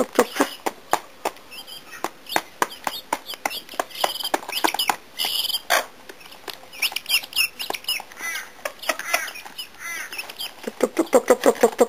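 Guinea fowl keets and a bantam hen pecking grain from a metal feed pan: quick runs of sharp taps, densest at the start and again near the end, with the keets' short high cheeps in between.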